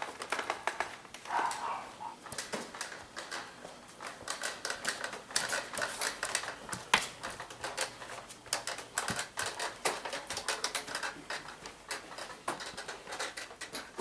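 Rapid, irregular clicking and tapping, several sharp clicks a second, like a clatter of small hard objects.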